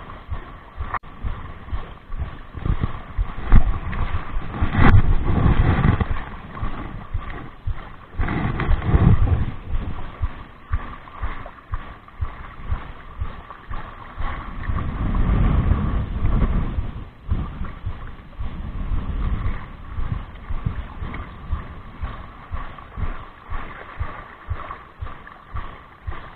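Wind gusting on the microphone, with water lapping against the shore rocks.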